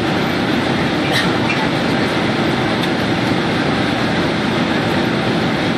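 Steady cabin roar inside a Boeing 767-336(ER) in flight, the engines and rushing airflow heard from a window seat behind the wing. The jet's engines are Rolls-Royce RB211-524H turbofans.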